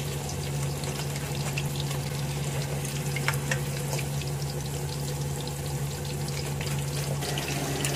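Battered pork pieces deep-frying in a wok of hot oil: a steady sizzle full of fine crackling pops. A steady low hum runs underneath, and there are a couple of sharper clicks about three seconds in.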